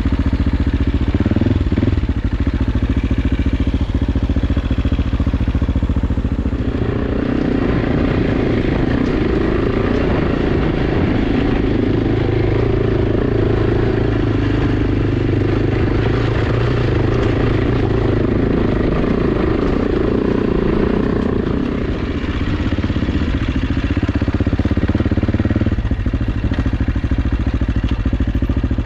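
AJP PR7's single-cylinder engine running steadily while the motorcycle is ridden off-road, its pitch rising and falling gently with the throttle, with some clatter over the terrain.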